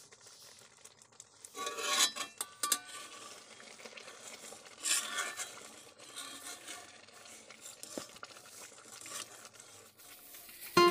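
Long metal spatula scraping and stirring thickening milk in a large iron kadhai, with irregular scrapes and knocks against the pan. The milk is being cooked down into khoya.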